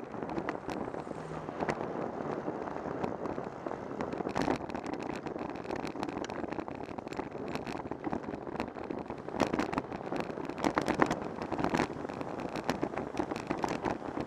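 Bicycle riding along a city street, heard from a camera mounted on the bike: a steady rush of wind and road noise with frequent sharp knocks and rattles, thickest a little past halfway.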